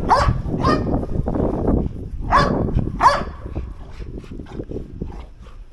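A dog barking in play: four short, sharp barks, two near the start and two a little past halfway, while it plays tug-of-war over a toy.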